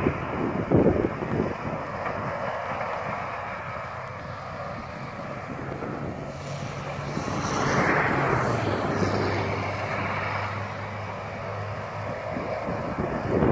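Farm tractor pulling a grain cart, its engine a steady low drone that drops in pitch about eight seconds in. Wind buffets the microphone near the start and again near the end.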